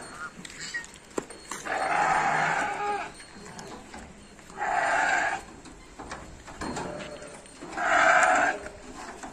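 Nellore Jodipi sheep bleating: three loud calls a few seconds apart, the first the longest and the last the loudest. A sharp knock comes just before the first call.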